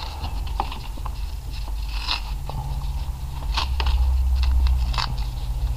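Fabric-backed insulating tape being pulled off its roll and handled around a wiring harness: crackling and rustling with scattered small clicks, over a steady low hum.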